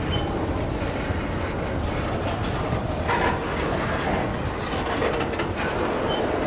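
Double-stack intermodal freight train rolling past at close range: a steady rumble of steel wheels on rail, with clanks from about 3 seconds in and a few short, high wheel squeals.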